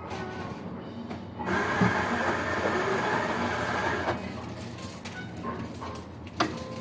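Coffee machine running with a loud, steady mechanical noise that starts about a second and a half in and cuts off suddenly a few seconds later, followed by a single sharp click near the end.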